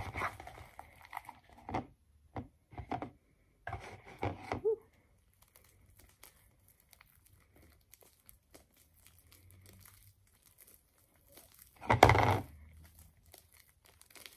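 Sticky homemade cloudy slime being kneaded and pulled apart by hand: scattered squishing and tearing sounds, busiest in the first few seconds, with one louder noise about twelve seconds in. The slime is still a little sticky.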